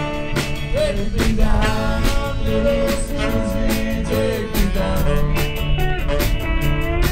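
Live rock band playing an instrumental passage: electric guitars, bass and a drum kit keeping a steady beat, with a lead line that slides and bends between notes.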